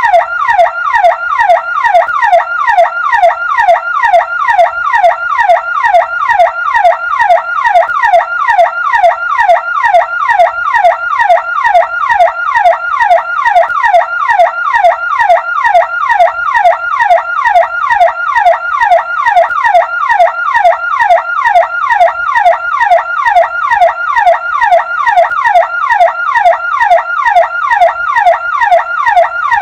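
Electronic ambulance siren in a fast yelp: a loud falling sweep that repeats about three times a second, without change.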